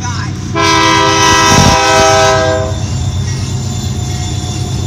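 Diesel freight locomotive's air horn sounding one long blast of about two seconds, starting about half a second in, over the steady low rumble of a passing double-stack freight train heard from inside a car.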